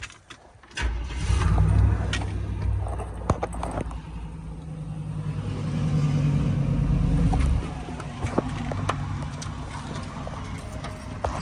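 Pontiac Trans Am's V8 engine catching about a second in and running. It rises in revs for a few seconds, then drops back to a steady idle about three-quarters of the way through.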